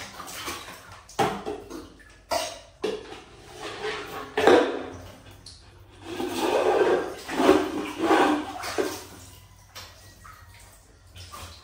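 Water splashing and sloshing in a bath, in irregular bursts, the longest spell about six seconds in.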